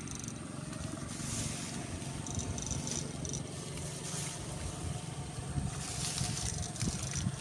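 Steady low, rough buzzing from a backpack electrofishing rig's battery-powered shocker while its probes are swept through the water, with a few faint high beeps or chirps.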